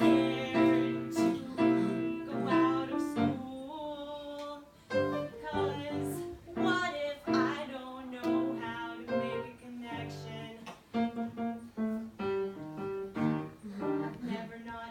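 Live piano music with a voice singing at times.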